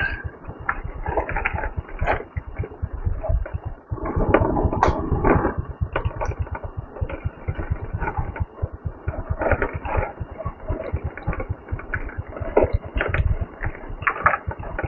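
Motorcycle engine running while riding, with irregular knocks and rattles.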